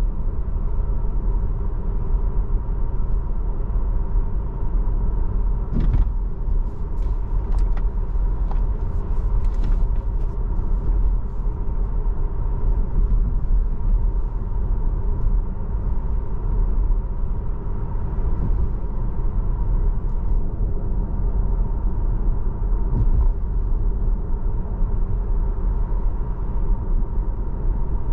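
Steady low tyre and road rumble from a moving Tesla, with no engine note, and a few faint clicks between about six and ten seconds in.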